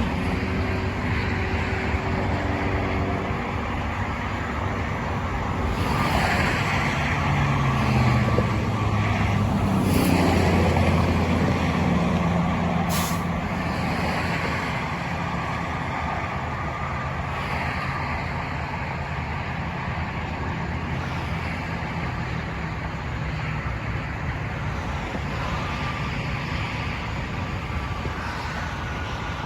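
Road traffic noise with a heavy truck's engine running, swelling louder between about six and twelve seconds in and then easing off. A brief sharp hiss comes about thirteen seconds in.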